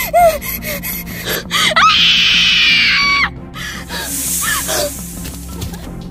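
A woman's loud, high held cry lasting just over a second, starting about two seconds in, with shorter cries before and after it, over dramatic background music. A hissing rush comes around four seconds in.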